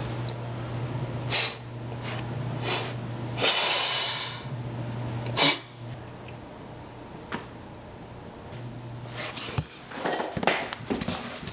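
Several short breathy sniffs and one longer exhale, like a sigh, over a steady low room hum, followed by soft rustles and clicks of movement near the end.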